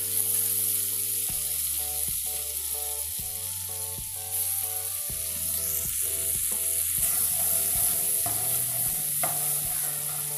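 Butter sizzling and foaming as it melts in a hot non-stick kadai, a steady high hiss that grows a little brighter about four seconds in. Near the end a wooden spatula stirs the foaming butter.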